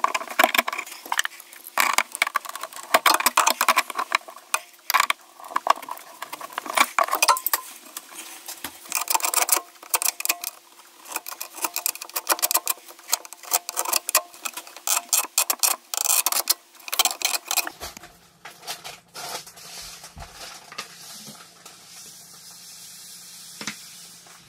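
Rapid, irregular metallic clinks and scrapes of pliers working on a brass shower drain flange. About three-quarters of the way in they thin out into a quieter stretch with a faint steady hum.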